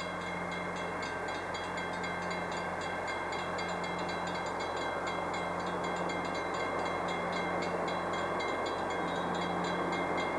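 Passenger train cars rolling slowly through a road grade crossing, a steady rumble that grows gradually louder. Behind it runs a fast, even ticking ring, typical of the crossing signal's bell.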